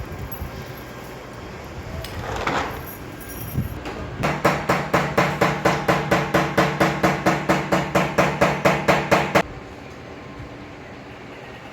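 Rapid, evenly spaced hammer taps on a car body panel, about five a second for some five seconds, each with a short metallic ring, then stopping abruptly: paintless dent repair tap-down work.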